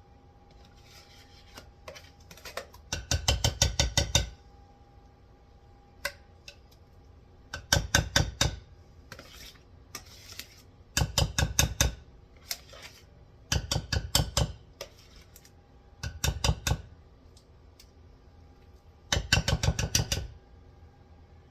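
A spoon knocking against a dish while stirring the seasoned chicken, in six bursts of quick strokes about a second long each.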